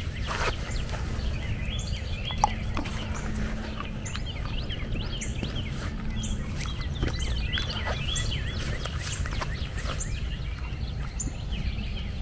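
Birds chirping repeatedly over a steady low rumble, with scattered light clicks and one sharp tick about two seconds in.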